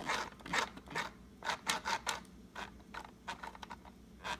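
Hands fiddling with tangled thread and small parts of a sewing machine: a run of irregular short scratching and rustling noises with small clicks.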